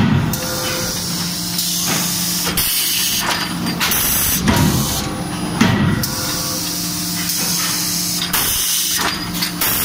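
CNC hydraulic die forging hammer working hot turnbuckle blanks: a few sharp heavy blows over a steady machine hum, with bursts of hiss in between.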